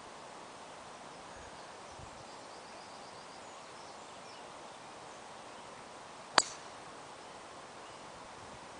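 Golf club striking a teed-up ball on a tee shot: a single sharp crack about six and a half seconds in, over faint steady outdoor background noise.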